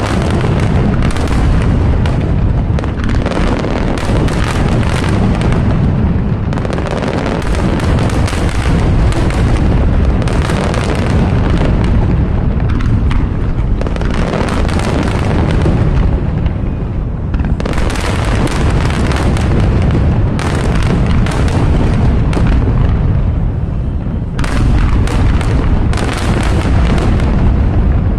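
Aerial fireworks bursting in a dense, unbroken barrage: many sharp booms and cracks overlapping on a constant low rumble.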